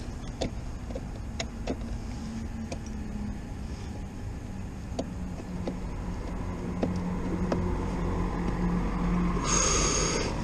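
Handling noises: scattered clicks and knocks as hands work straps, Velcro and a charging cable under a motorcycle side case, over a steady low hum. A loud rushing noise about a second long comes near the end.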